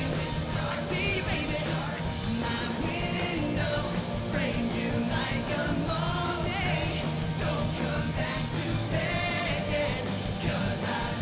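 Live rock band playing: strummed electric guitars and drums, with a singer's voice over the band.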